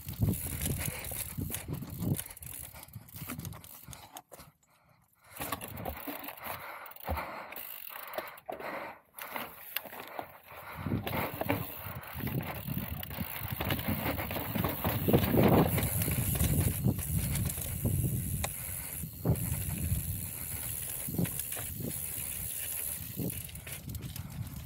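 Mountain bike being ridden along a dirt trail: tyre noise with frequent knocks and rattles from the bike over bumps. The sound almost cuts out for about a second, four seconds in.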